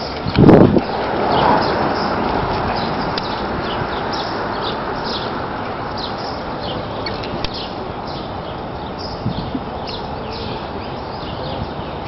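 Park ambience: birds chirping in short high calls against a steady background hiss. A loud thump about half a second in comes from the handheld camera being moved.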